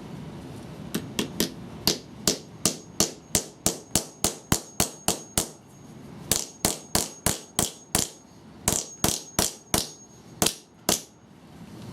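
Hammer striking repeatedly, about three blows a second with two short pauses, driving metal T-nuts into wooden gear knobs. A faint high metallic ring hangs between some of the blows.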